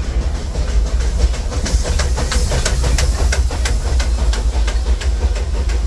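Disneyland Railroad's steam locomotive No. 4, the Ernest S. Marsh, passing close by, chuffing in a quick even beat of about three strokes a second with steam hiss, starting about a second and a half in.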